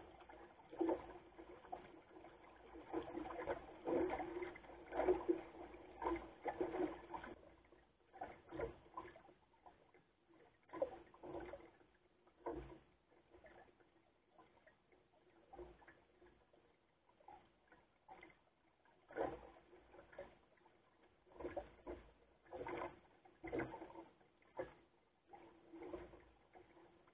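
Water lapping and splashing against the hull of a small sailboat under way, in uneven surges, busier in the first few seconds and then more spaced out. A faint steady hum runs underneath.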